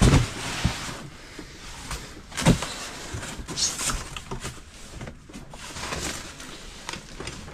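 Cardboard boxes being handled and set down: a thud right at the start and a louder one about two and a half seconds in, then cardboard and paper rustling and small knocks as the box's contents are rummaged.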